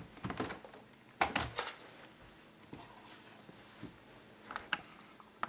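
A few faint, scattered clicks and knocks of handling, the loudest cluster about a second in, as an iPad is picked up and held up.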